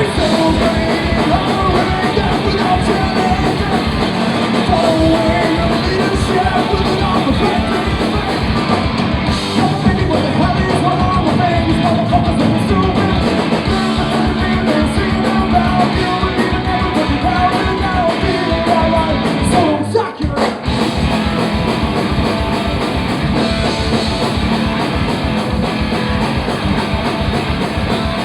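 Punk rock band playing live: distorted electric guitars, bass and fast drums, with sung vocals at times. The band drops out for a moment about twenty seconds in, then comes straight back.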